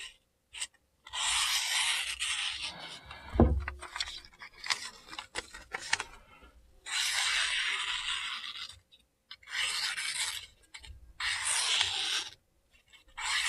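Freshly sharpened Spyderco PM2 Tanto blade (M4 steel, 600-grit edge) slicing through lined paper: four long slicing strokes of a second or two each, a paper-cutting test of the new edge. A low thump about a quarter of the way in, with small clicks between the cuts.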